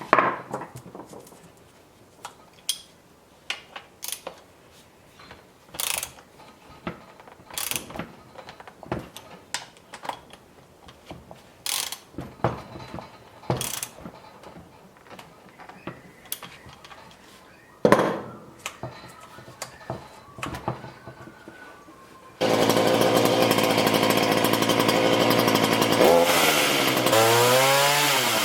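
A series of sharp clicks and knocks, then about 22 seconds in a chainsaw starts and runs steadily. Near the end it is revved twice, its pitch rising and falling each time.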